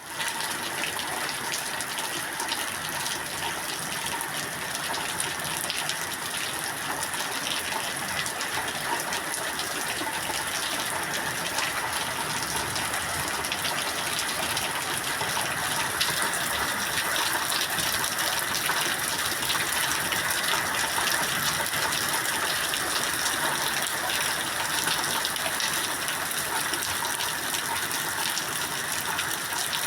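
Steady heavy rain, an even rushing hiss with no let-up.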